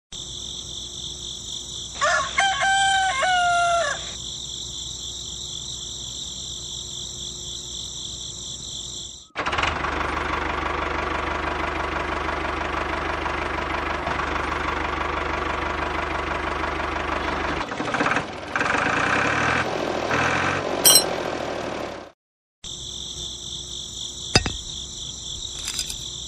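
A rooster crows once, about two seconds in, over a steady high-pitched drone. Then a louder steady noise with a low hum takes over for about twelve seconds, and the high drone comes back near the end.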